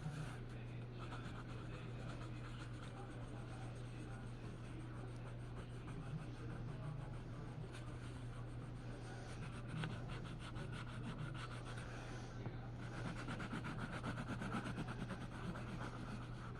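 Faint scratchy strokes of a drawing or colouring tool rubbing on paper, over a steady low hum.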